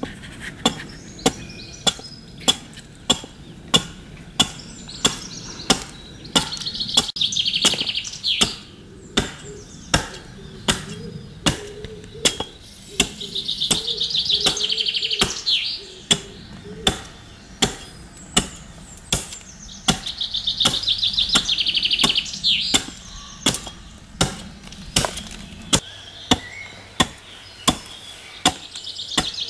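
Bottoming adze chopping into a wooden chair-seat blank to hollow the seat, a steady rhythm of sharp strokes about one and a half a second. A bird sings a high trill three times behind it.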